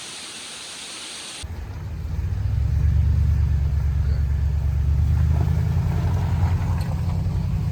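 A steady rushing hiss, then about a second and a half in, a sudden cut to a motor vehicle's engine running as a loud, steady low rumble.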